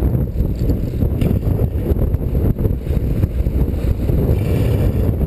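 Steady low rumble of wind buffeting the camera microphone on a boat at sea.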